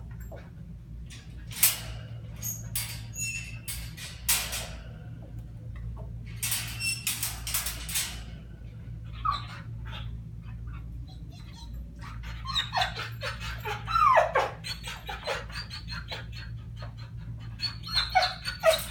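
A dog whining in high cries that bend and fall in pitch, in two spells in the second half, among scattered sharp clicks and rattles, over a steady low hum.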